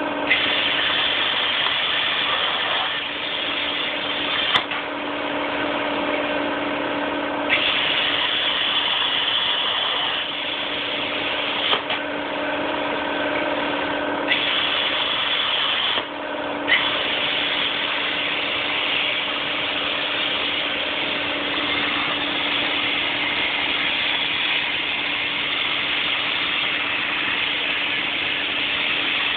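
ProCutCNC 4400 CNC plasma table cutting steel plate: the plasma torch's hiss cuts in sharply several times as it fires and pierces, then runs steadily through the later part as it cuts. Under it runs a steady machine hum.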